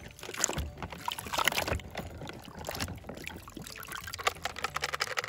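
Soapy water sloshing and splashing in a plastic tub as a toy monster truck is pushed under and lifted out, with water running off it.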